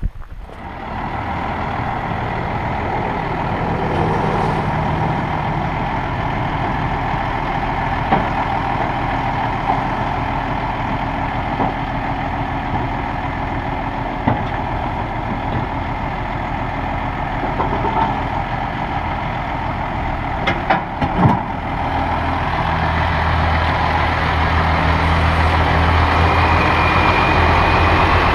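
Engine of a 1995 International 4800 dump truck running steadily as the truck drives slowly, with a few short knocks around the middle; the low rumble grows louder over the last few seconds as the truck comes close.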